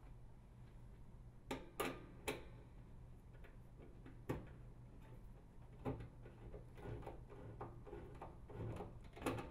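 Metal nut driver clicking and tapping against the bath fan's sheet-metal housing while a hex head screw is tightened. There are a few sharp clicks, spaced irregularly, and then a quicker run of lighter taps near the end.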